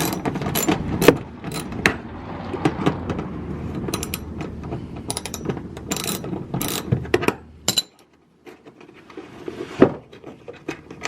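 Car jack being worked to raise the car: a run of rapid mechanical clicks and clanks that stops abruptly about eight seconds in, followed by a single click near the end.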